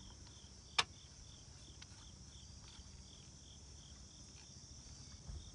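Insects chirping: a steady high-pitched drone with a short chirp repeating about three times a second. One sharp click about a second in.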